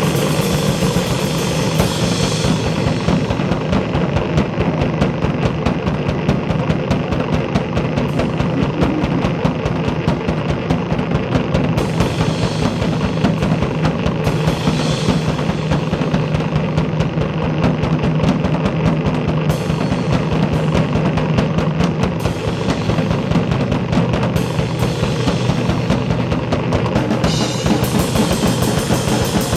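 Loud live noise music: a dense, rapid pulsing beat over a steady low drone, with harsher, brighter noise surging in a few times.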